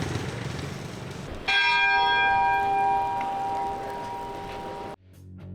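A large tower bell struck once about a second and a half in, its ringing slowly fading, then cut off suddenly near the end.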